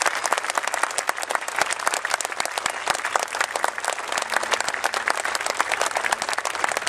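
Outdoor crowd applauding: many people clapping steadily in a dense patter.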